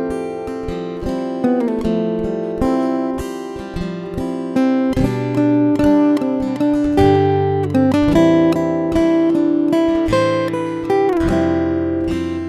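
Background music: acoustic guitar picked and strummed, with chords changing every second or two.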